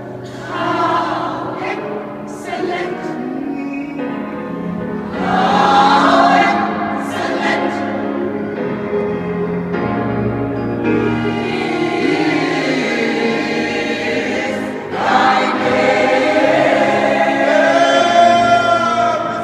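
Mixed gospel choir of women's and men's voices singing together, swelling louder twice.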